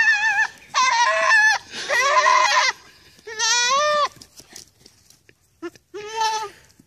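Goat kid bleating repeatedly: about five wavering calls, each under a second long, with short gaps between them and a longer pause before the last one.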